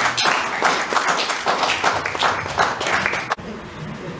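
Audience applauding, many hands clapping, cut off abruptly about three and a half seconds in.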